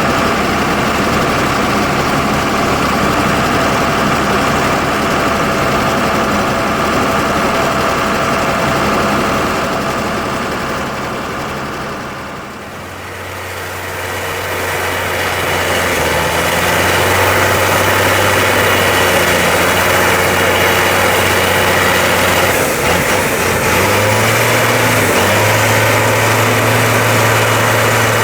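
Diesel tractor engines running under load alongside the potato harvester's machinery. The sound dips briefly about twelve seconds in and comes back with a stronger low engine note, whose pitch rises and falls several times near the end.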